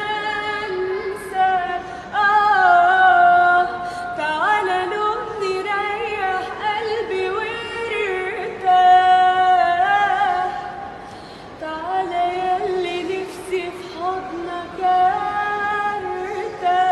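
A woman singing a melody with long held notes and ornamented slides between pitches, dropping softer for a moment a little past the middle.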